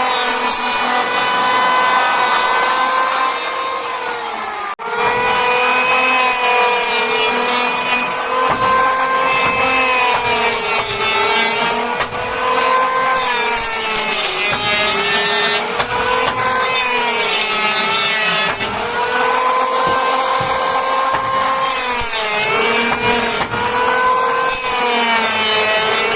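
Electric woodworking power tool running continuously while cutting wood, its motor whine sagging and recovering in pitch every couple of seconds. It cuts out briefly about five seconds in, then runs on.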